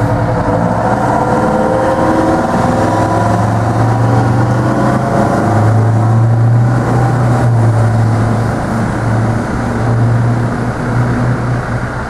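Aerial ladder fire truck's diesel engine pulling away, rising in pitch over the first few seconds as it accelerates, then running steady.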